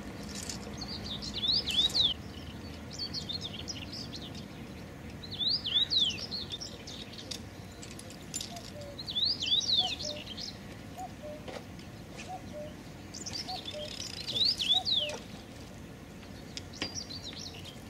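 A songbird singing in short phrases of quick, high, downward-slurred notes, a phrase every few seconds, with some weaker lower chirps between phrases in the middle.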